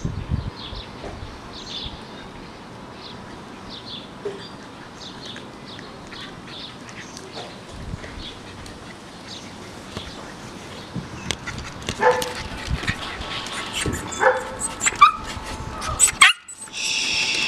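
Miniature pinscher gnawing and chewing a stick, with scattered clicks and crunches. From about twelve seconds in, the small dog's voice breaks in several times with short pitched sounds.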